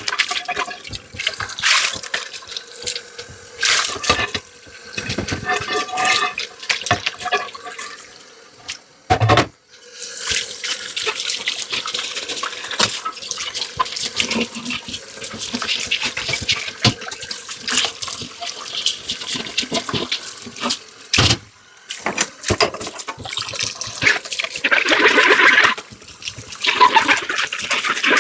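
Dishes clinking and knocking together in a kitchen sink for the first ten seconds or so, then a tap running steadily as water splashes over the dishes.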